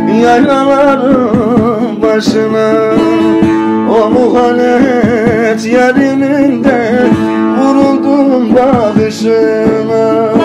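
Bağlama (saz) played briskly, accompanying a man singing a Turkish folk song (türkü) in a wavering, ornamented vocal line.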